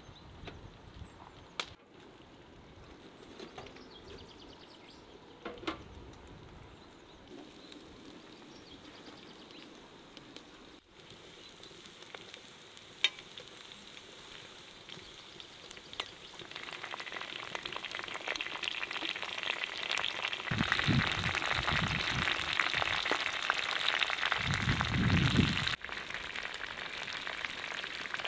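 Guinea fowl pieces and potato slices frying in oil in a large black steel pan over a wood fire, sizzling, with a few sharp clicks of a metal fork against the pan. The sizzling grows louder about halfway through, with two low rumbles near the end.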